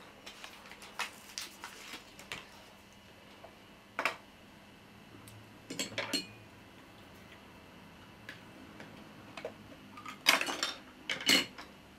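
Scattered light clicks and knocks of hard plastic model rocket parts being handled and fitted together, a few at a time, with the loudest handful near the end.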